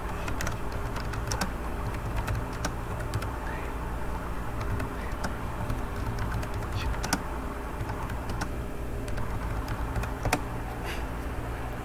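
Typing on a computer keyboard: a run of irregular key clicks over a steady low background hum.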